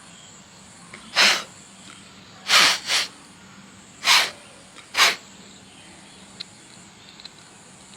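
Five short hissing bursts, each under half a second, the second and third coming close together.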